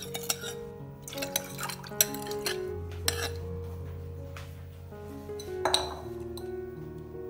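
A metal spoon clinking and scraping against a ceramic bowl while liquid is poured from it into a stainless steel pot, with several sharp clinks and the loudest cluster near the end.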